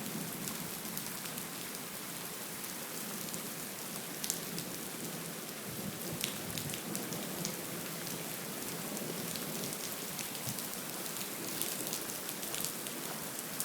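Heavy rain falling steadily during a thunderstorm, a constant hiss with scattered sharp ticks of individual drops striking.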